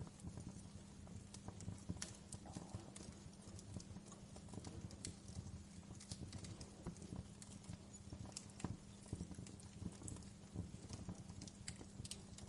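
Wood fire crackling: irregular sharp snaps and pops, several a second, over a steady low hum.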